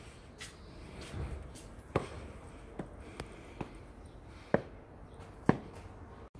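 Footsteps on stone steps: a few sharp knocks, the loudest roughly a second apart, with fainter ticks between them.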